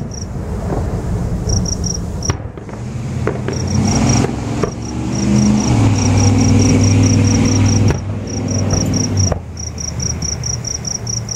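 Crickets chirping in a steady rhythm, about four chirps a second. Under them, a vehicle engine hums, growing louder through the middle and easing off again.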